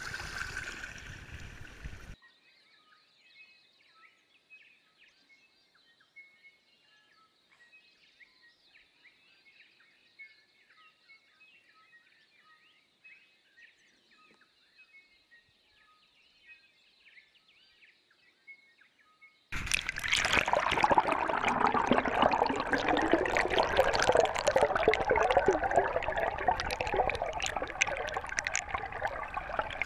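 Water churning in the wash of a small electric trolling motor's propeller, which cuts off about two seconds in to near silence with faint bird chirps. About two-thirds of the way through, a loud underwater rush of water and bubbles from the spinning propeller starts and runs to the end, heard through an underwater camera.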